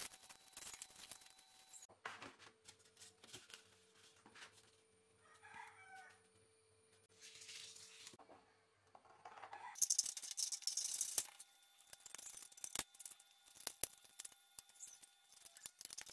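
Faint craft-work sounds: a utility knife scraping through polystyrene foam, then a louder spell of scraping about ten seconds in as a marker traces on galvanised sheet metal and the sheet is handled, followed by scattered clicks and taps. A rooster crows briefly in the background about five seconds in.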